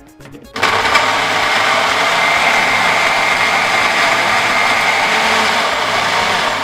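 Countertop blender starting suddenly about half a second in and running steadily at full speed, pureeing a liquid orange-juice marinade with garlic and onion; it begins to wind down at the very end.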